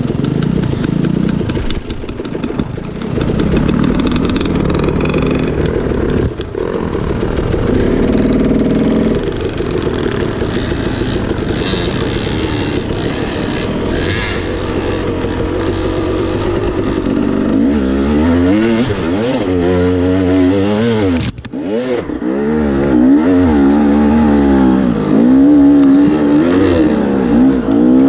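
Dirt bike engine running, then revving up and down in quick repeated swells of pitch over the last third, dropping out briefly once. The bike is a KTM 300 XC converted to a BRC 500.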